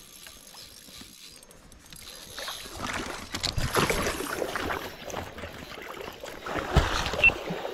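Water splashing as a hooked fish thrashes at the surface, starting about two seconds in and going on unevenly, with a couple of sharp knocks near the end.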